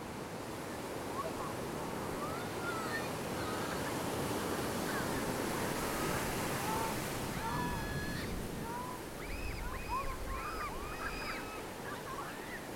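Ocean surf breaking and washing up a sand beach, swelling to its loudest about midway. Over it, in the second half, comes a quick run of short, high, arching calls.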